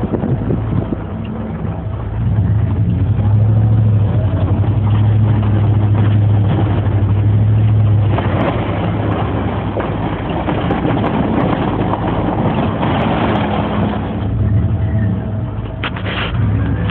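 Dodge Ram pickup's engine running steadily under load while plowing snow, its low drone rising in level about two seconds in. A louder rushing noise joins in from about eight to fourteen seconds in.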